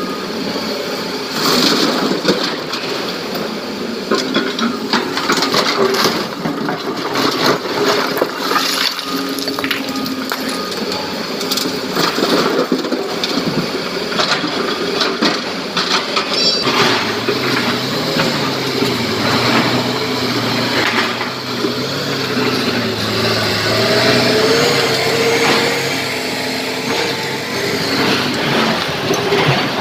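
Diesel engine of a SANY crawler excavator running while its bucket dumps broken quarry rock into a steel tipper body, the rocks clattering and banging. In the second half the clatter thins out and a heavy diesel truck engine runs steadily, its pitch slowly rising and falling.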